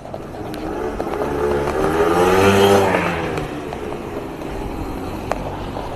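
Motor scooter engine sound effect passing by: it grows louder to a peak about two and a half seconds in, its pitch rising and then falling, and then goes on running at a steady lower level.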